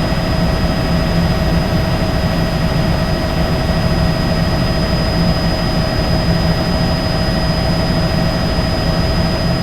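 Helicopter running steadily, its rotor beating low under a steady high engine whine.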